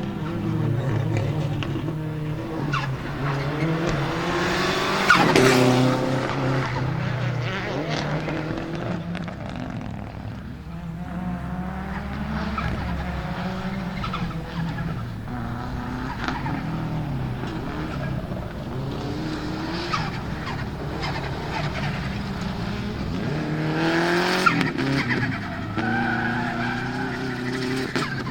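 Subaru Impreza GC8 Group A rally car's turbocharged EJ20 flat-four revving hard, its pitch climbing and dropping through the gears, loudest about five seconds in and again near the end, with tyres skidding.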